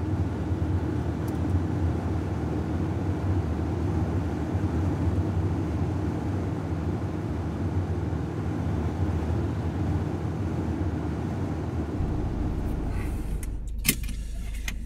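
Car cabin noise while driving: a steady engine and road hum heard from inside the car. About twelve seconds in it changes to a lower hum, and a few sharp clicks follow near the end.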